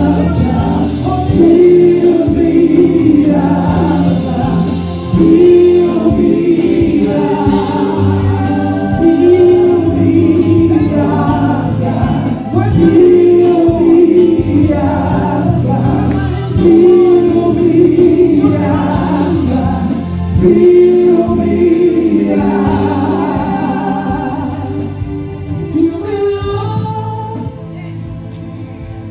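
Gospel choir singing a praise song over a band with a steady beat, the sung phrase coming round about every four seconds; it grows quieter near the end.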